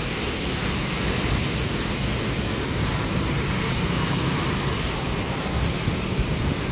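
Steady city street noise: road traffic rumbling along, with wind buffeting the microphone.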